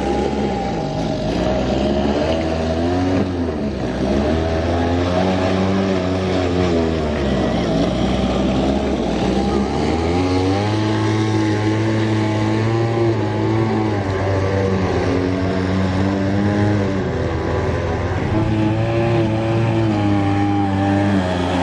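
Small grass-cutter (brush-cutter) engine powering a radio-controlled boat, running without a break, its revs rising and falling again and again as the throttle is worked.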